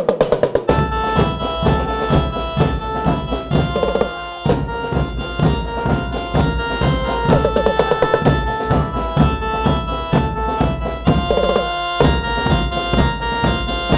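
Koprekan procession percussion: bass drum and snare drums beating a steady, fast rhythm. Less than a second in, a sustained keyboard-like melody joins them.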